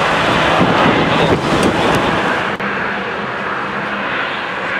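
Tupolev Tu-134A-3 jet airliner running during engine start-up: a loud, steady rush with a low hum underneath.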